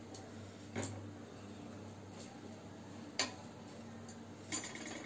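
Mustard oil heating in a kadai over a high gas flame: a few sharp, scattered ticks and pops over a faint low hum.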